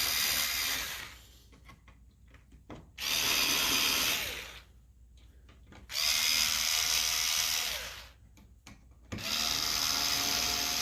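Power drill backing out the screws that hold a dining chair's seat cushion to the frame. It runs in four short spurts of a steady whine, one per screw, each a second or two long with pauses between.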